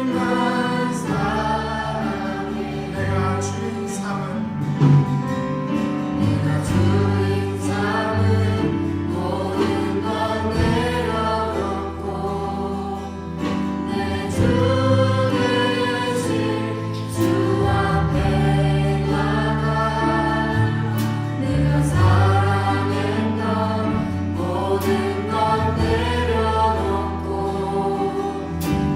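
A church praise team and band playing a Korean worship song, a group of voices singing together over bass and chords.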